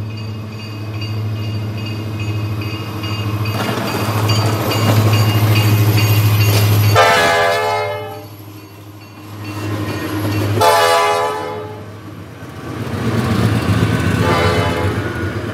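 Norfolk Southern diesel freight locomotives passing with a steady low engine drone. A locomotive air horn sounds two loud blasts, about seven and eleven seconds in, and a fainter third blast near the end.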